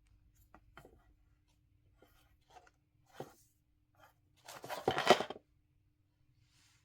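Packaging being handled: a few soft rustles and light clicks, then a louder crinkling rustle lasting about a second, near the end.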